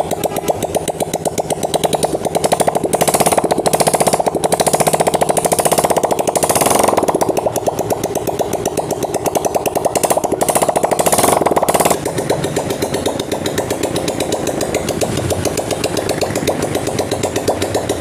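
Honda CG125 single-cylinder four-stroke engine running with its exhaust silencer off, just after its cylinder head was refitted and before the tappets are set. It runs at raised revs for a while, then drops back to a lower idle about twelve seconds in.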